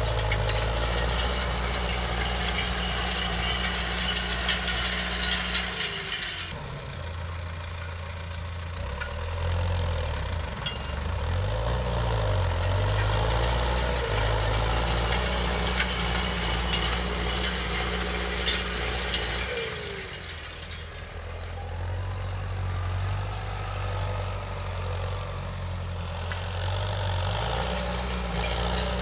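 John Deere 6330 tractor's four-cylinder diesel engine running steadily under load as it pulls a field cultivator through tilled soil. The engine note shifts and wavers a few times, and the sound dips a little in level twice.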